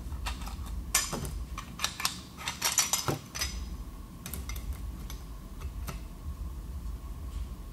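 Steel automatic-transmission parts, a clutch drum and its shaft, clinking and clattering as they are handled on a workbench. Sharp metallic clinks with a short ring come thick for the first three seconds or so, then a few lighter clicks follow.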